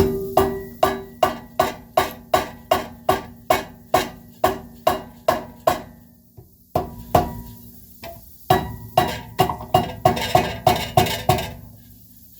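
Repeated hammer blows on the seized rear brake drum of a 2010 Toyota Prius, trying to knock it loose, each blow leaving a short metallic ring. About fourteen steady blows, a brief pause, then a faster flurry near the end.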